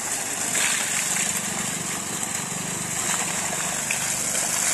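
Tube-well water gushing steadily from a pipe into a brick tank and splashing, with a low mechanical hum underneath.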